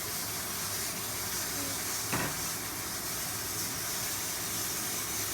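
Steady background hiss, with one short sharp click about two seconds in.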